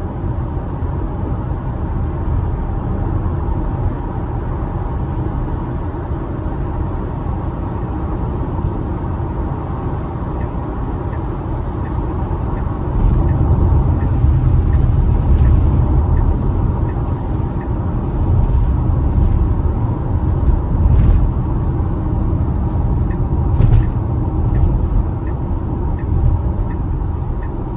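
Road noise inside the cabin of a Tesla Model Y driving on wet roads in the rain: a steady low rumble of tyres, growing louder about halfway through.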